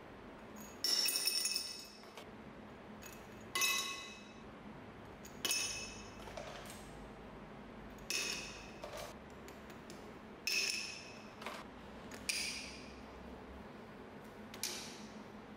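Ice cubes dropping one batch at a time into a tall empty glass water bottle: about seven bright, ringing clinks of ice on glass, a couple of seconds apart, with a few smaller rattles after some of them.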